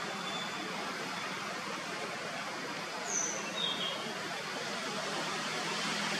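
Steady outdoor background hiss, with two short high chirps a little past halfway, the first one falling in pitch.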